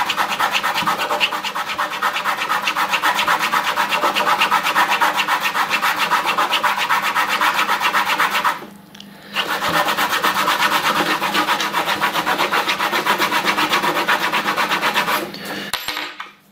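A coin rubbed rapidly back and forth on a leather strop charged with GOI polishing paste: an even, rasping scrape in fast strokes, polishing the tarnished coin's raised surfaces. It breaks off briefly about halfway through and dies away near the end.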